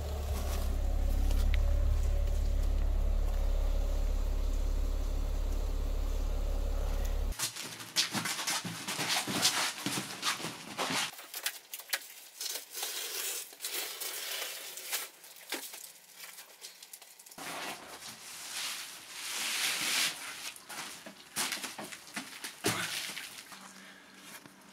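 A vehicle engine idles with a steady low hum for about seven seconds and then cuts off abruptly. After that come irregular rustling, crinkling and knocks from a rusty motorcycle being handled on paper and cardboard, with a single louder knock near the end.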